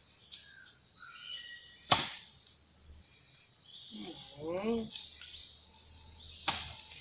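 Steady high-pitched drone of forest insects, with two sharp clicks about two and six and a half seconds in and a brief voice near the middle.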